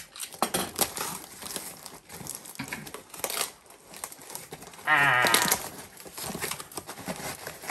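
Tape and paper packaging crinkling and tearing as a taped mailer is pried open by hand. About five seconds in, a short wavering bleat-like squeal stands out as the loudest sound.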